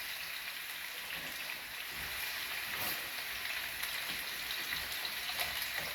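Stuffed chicken breasts searing in avocado oil in a pan on high heat: a steady sizzle with a few faint pops of spitting oil.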